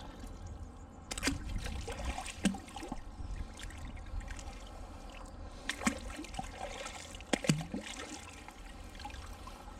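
Water trickling and splashing at the canal edge, broken by several sharp knocks and clatters, the loudest pair about three quarters of the way through.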